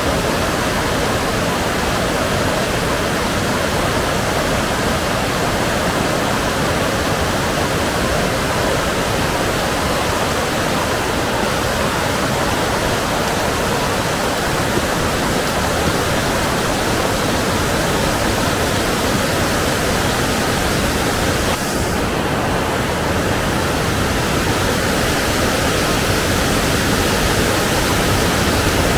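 Rain-swollen mountain river rushing in spate, a loud steady roar of fast, high water.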